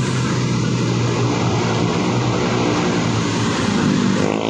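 Roadside traffic: a vehicle engine running with a steady low hum over continuous road noise. A rising engine note comes in near the end.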